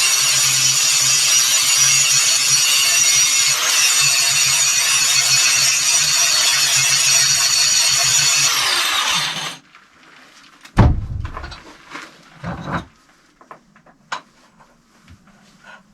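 Angle grinder with a grinding wheel grinding the edges off steel tong pieces, a steady loud grinding with a high whine. About nine seconds in it is switched off and winds down, followed by two dull thumps and a few light clicks.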